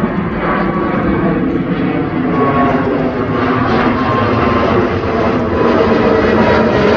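Jet airliner climbing out after takeoff and passing overhead. Its jet engine noise grows steadily louder, with a few steady whining tones in it.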